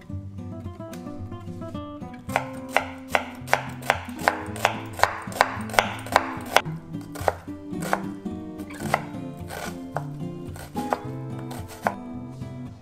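Kitchen knife chopping an onion on a wooden cutting board: a run of sharp knife strikes beginning about two seconds in, two to three a second at first and sparser toward the end. Light plucked-string background music runs underneath.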